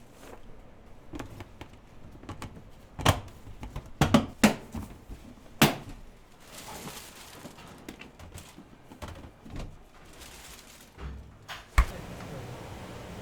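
Kitchen clatter during food preparation: a handful of sharp knocks and clinks of utensils and containers set down and handled, loudest through the middle and once more near the end, after which a steady hiss sets in.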